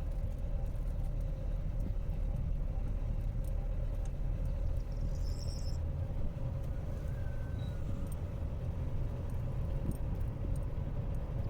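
Steady low rumble of a vehicle running, with a faint constant hum and a brief high chirping about halfway.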